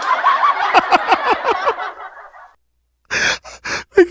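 Laughter with quick falling 'ha-ha' pulses, fading out about two and a half seconds in. After a moment of silence, short breathy bursts of laughter start again near the end.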